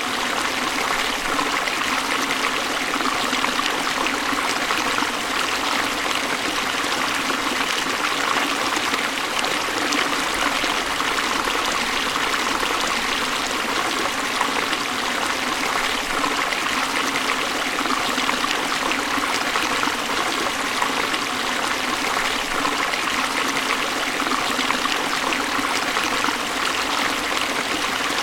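Waterfall: a steady, even rush of falling and splashing water, unchanging throughout.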